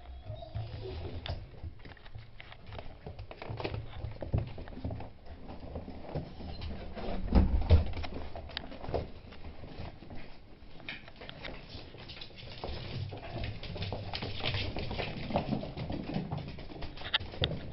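Beagle puppies' claws clicking and pattering on a wooden parquet floor as they move about, with a louder bump about seven seconds in.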